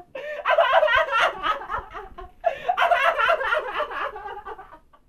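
A man laughing hard in two long bouts, the second dying away near the end.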